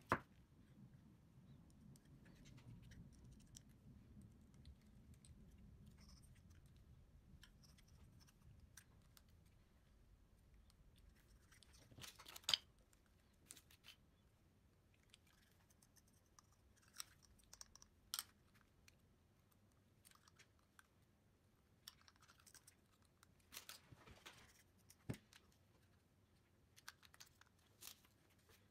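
Quiet handling of small metal and plastic RC gearbox parts: scattered light clicks and taps as pieces are picked up and fitted, with near silence between them.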